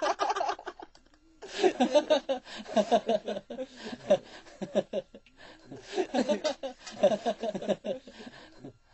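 Men laughing in repeated bouts, with a short pause about a second in.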